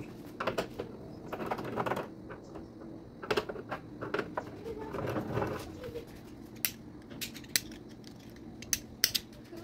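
Scattered small clicks and taps of a screwdriver and loose screws against a TV's plastic back cover, with a few short rustles of handling.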